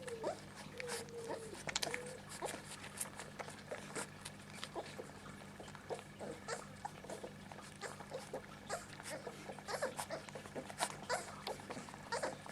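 Kleine Münsterländer puppies whining briefly a few times near the start, followed by a busy run of small clicks and scuffling.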